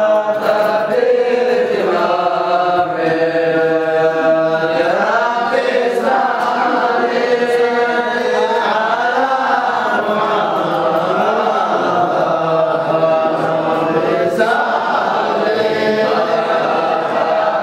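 Group of young men's voices chanting an Islamic dhikr together, holding long notes that rise and fall in a continuous devotional chant.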